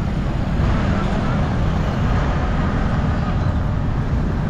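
City street ambience: a steady low rumble of passing road traffic, with voices in the background.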